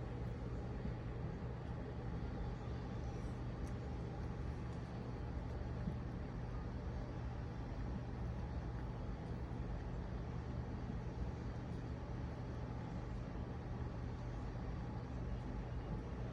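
A steady low hum and rumble, unchanging throughout.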